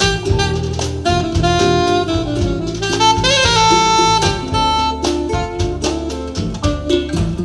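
Jamo S606 loudspeakers playing the instrumental break of a jazz ballad: a saxophone lead over drums and bass, holding one long note in the middle.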